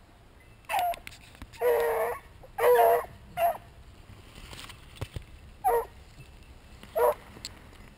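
Beagle barking and baying in a string of about six calls, two of them longer and drawn out about two seconds in.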